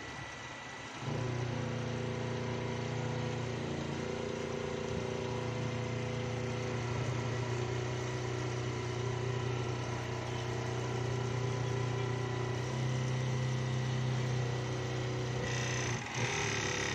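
Jack E4S four-thread overlock machine sewing fabric at a steady speed: its motor and stitching mechanism run with an even hum. It starts about a second in and stops shortly before the end.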